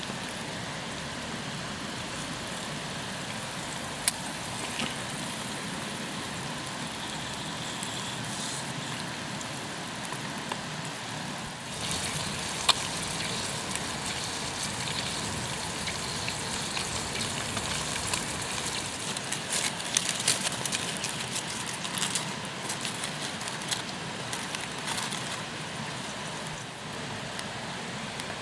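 Bacon and eggs frying in a pan over a wood campfire: a steady sizzle with the fire crackling and popping now and then. The sizzle grows a little louder about halfway in, and a thick run of crackles follows.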